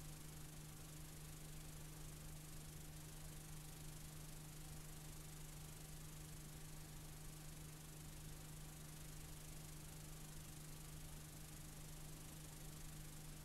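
Faint steady tape hiss with a steady low hum underneath, the noise of a blank stretch of old videotape.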